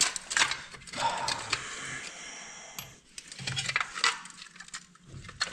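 Small metal and plastic parts of a truck headlight assembly clicking and clinking as its adjuster and spring are worked apart by hand, with a stretch of scraping about a second in.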